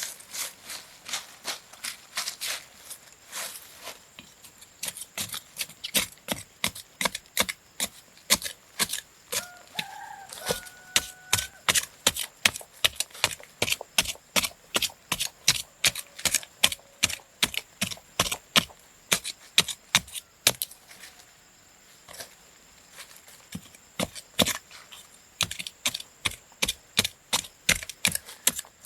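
A long run of sharp knocks, about two to four a second, like repeated chopping strokes, pausing briefly twice. A short two-tone squeak sounds about ten seconds in.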